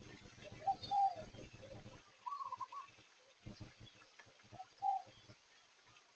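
Birds calling outdoors: about four short warbling calls, two higher and two a little lower. A low rumble runs under the first two seconds, and a few low knocks come in the middle.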